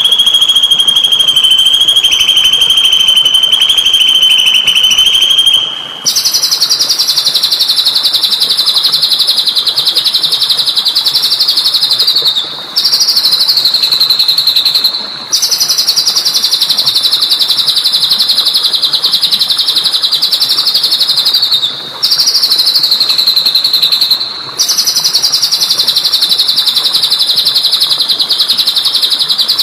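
Recorded songbird song: long, high, rapid trills, each held for a few seconds and dipping slightly at its end, repeated with brief breaks. The first phrase is lower; the later ones are higher.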